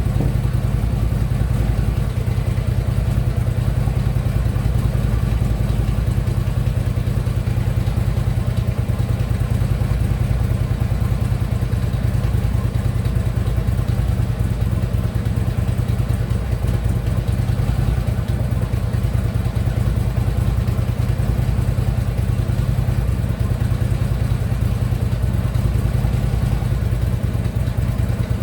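Harley-Davidson Ultra Limited's V-twin engine running steadily at idle, with a slight knocking from the lower end that the owner can hear but has not yet traced.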